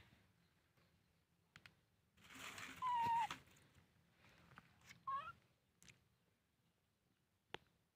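Baby macaque calling: a long squeaky call about three seconds in, the loudest sound, and a short rising squeak about five seconds in. A sharp click comes near the end.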